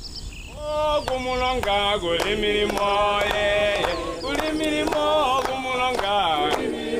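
Chant-like singing, starting about half a second in: held notes that step from pitch to pitch every half second or so, over a steady percussive beat of about three strikes a second.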